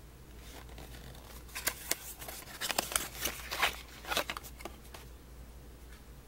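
A small cardboard perfume box handled and opened by hand: over about three seconds there is a cluster of papery scrapes, rustles and light clicks as the end flap is pried open and the glass bottle is drawn out.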